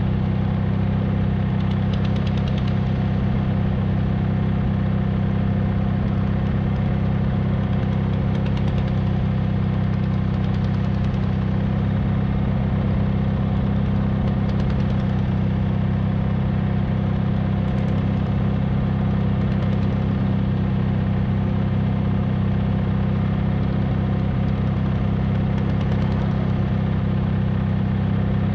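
Vintage tractor engine idling steadily close by, an even low running note that does not change in speed or level.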